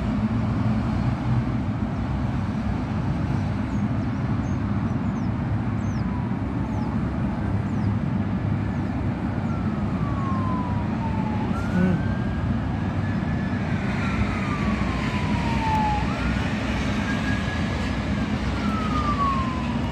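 Steady rumble of road traffic from a toll road, with a siren wailing from about halfway through, rising and falling slowly in pitch.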